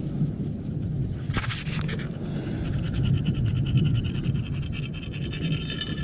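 Digging into beach sand after a metal detector target: a tool scraping through the sand, with a flurry of scrapes about a second and a half in and a fast run of small scratchy ticks through the second half, over a steady low rumble.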